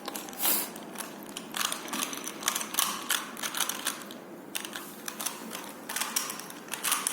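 Plastic clicking and clacking of a Rubik's brand Rubik's Cube being turned quickly in a speed solve: irregular clicks several times a second, with a short lull a little past halfway.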